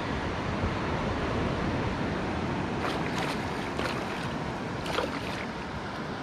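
Steady wash of surf and wind on the microphone, with a few brief splashes about three to five seconds in as a hooked emperor fish thrashes at the surface close by.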